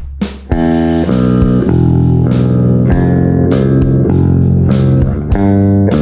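Eight-string electric guitar played with a clean tone on its bridge humbucker: chords and deep low-string notes struck about once or twice a second and left ringing, starting about half a second in.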